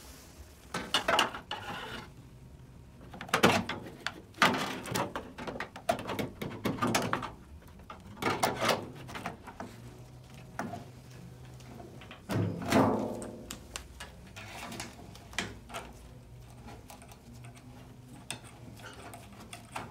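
Intermittent clinks, scrapes and knocks of a gas water heater burner assembly being handled and fitted back in, its gas tube and thermocouple fed up to the gas control valve and the gas tube nut set by hand.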